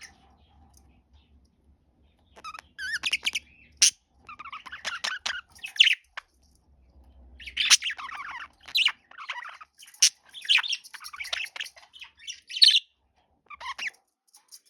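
Budgerigar chirping and chattering in quick runs of short, high warbling notes, starting about two seconds in and pausing briefly twice.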